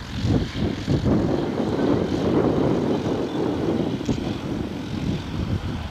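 Light single-engine propeller airplane flying low on its landing approach, the engine and propeller running steadily.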